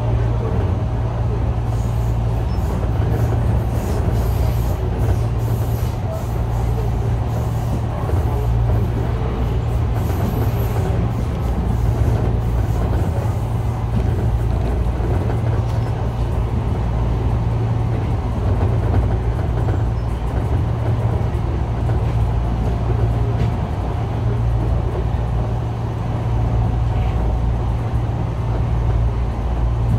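Enshu Railway 2000 series electric train running along the line, heard from inside the front of the car: a steady low rumble and hum of wheels on rail and running gear.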